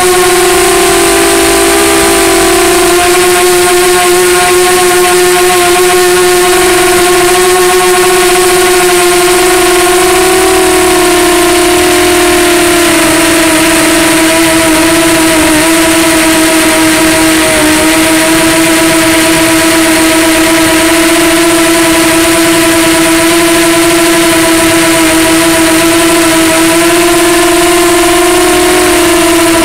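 Lumenier QAV250 quadcopter in flight: its Multistar 2204-2300KV brushless motors and DAL Cyclone 5050 props whine steadily over a hiss of rushing air, heard from the onboard camera. The pitch wavers slightly a few times as the throttle changes.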